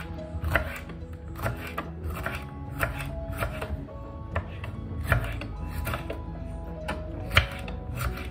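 A kitchen knife slicing red peppers into rings on a cutting board: short, irregular cuts, about one or two a second, each ending in a tap of the blade on the board. Background music plays underneath.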